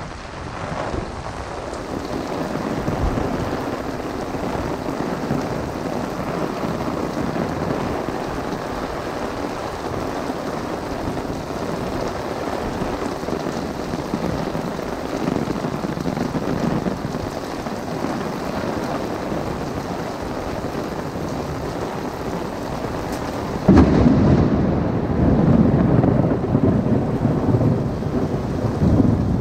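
Heavy thunderstorm rain pouring steadily onto an umbrella and the flooded street. About three-quarters of the way through, a very close thunderclap strikes suddenly, and its loud rumble carries on to the end.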